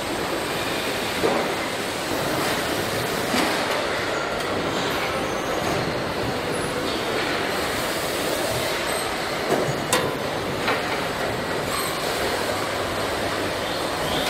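Steady din of machinery and conveyors on a car-body assembly line, with a few sharp clanks, most of them close together a little past the middle.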